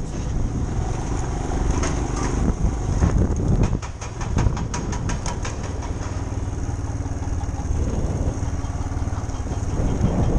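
Motorcycle running along a rough dirt track, recorded on the bike's onboard camera, with a steady low engine and road rumble. A few seconds in there is a quick run of rattling ticks.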